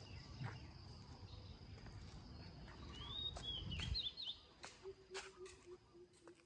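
Low outdoor background noise with a short run of high chirps about three seconds in. Scattered faint clicks follow, and a faint low pulsing tone sets in near the end.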